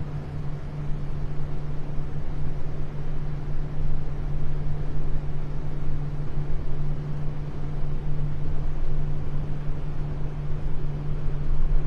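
Tour boat's motor running steadily underway, a constant low drone, with a steady rushing hiss over it.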